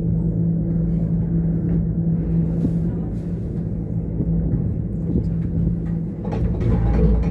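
Ropeway gondola cabin travelling along its cable: a steady mechanical hum over a low rumble. About six seconds in, as the cabin clears a support tower, the rumble swells with some rattling.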